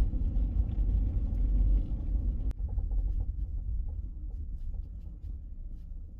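Steady low rumble of road and tyre noise inside a Honda Element being driven on a snow-covered road. A brief click comes about two and a half seconds in, after which the rumble slowly gets quieter.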